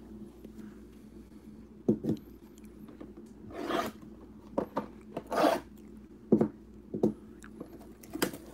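A cardboard trading-card hobby box being handled and opened by hand: a few short knocks and taps, and two longer scraping rubs, the first about four seconds in and the second a second and a half later.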